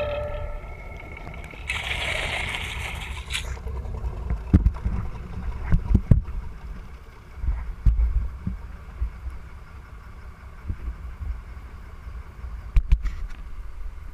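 Music fading out, then a brief rush of hiss about two seconds in. After that comes the low, steady rumble of a sportfishing boat's engine with wind on the camera and irregular low thumps.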